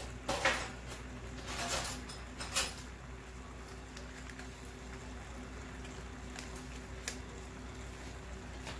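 Kitchen handling sounds while mascarpone cheese is spooned out of its tub: a few short scraping rustles in the first three seconds and a sharp clack about two and a half seconds in, then a faint steady hum with one small click near the end.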